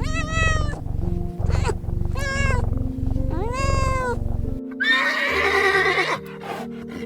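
A cat meowing four times, each meow rising and falling in pitch, over steady background music. About five seconds in comes a single harsher, noisier animal call of about a second and a half.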